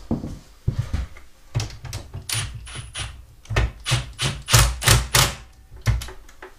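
Cordless impact driver hammering in a string of short trigger bursts as it tightens a bolt on a mobility scooter's frame. The bursts come thicker and louder from about a second and a half in.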